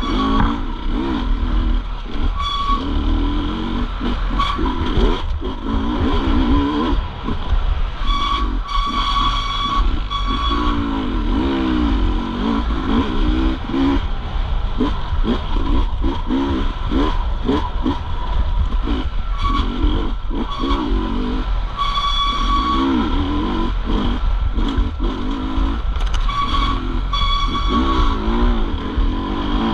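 Off-road racing motorcycle engines revving up and down over and over as the bikes ride the course, pitch rising and falling with each throttle blip and gear change.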